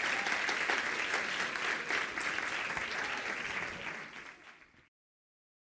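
Audience applauding, a dense even clapping that fades out about four seconds in and stops before five seconds.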